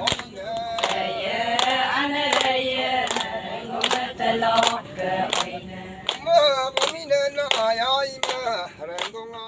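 A women's chorus singing a traditional Adi Ponung song together, with sharp regular beats keeping time, about three every two seconds.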